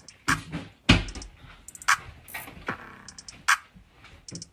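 Sparse electronic beat: separate drum hits, the loudest about a second in, with quick rolls of hi-hat ticks between them.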